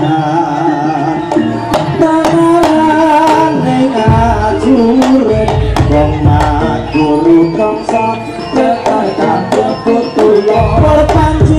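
Live jaranan gamelan accompaniment: kendang hand drums strike a busy rhythm under a wavering melody line. Deep booms come in about four seconds in and again near the end.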